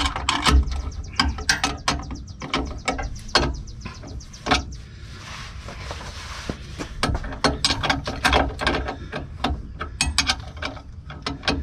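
A ratchet clicking in quick runs as the air dryer's mounting bolts are tightened down, with a short pause about halfway through.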